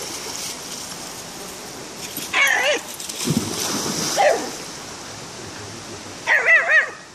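A dog whining in two short bouts of high, wavering cries, one about two and a half seconds in and one near the end, over the steady rush of the stream.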